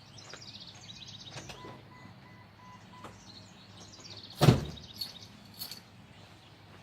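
Birds chirping, with a few faint short electronic beeps about a second and a half in. A single loud thump comes about four and a half seconds in, then a smaller knock a second later.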